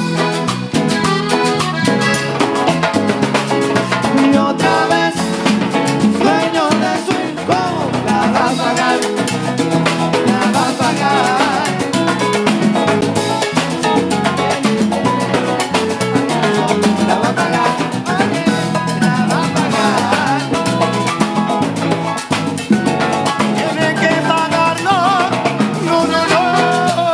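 Live cumbia band playing with accordion, drum kit and percussion over a steady dance beat.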